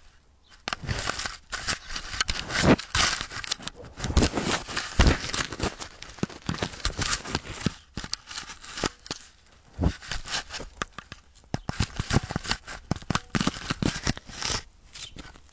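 A dog chewing on an Arlo security camera right at its microphone: a dense run of crunching, scraping and clicking as teeth work over the camera's housing, with a brief lull about midway.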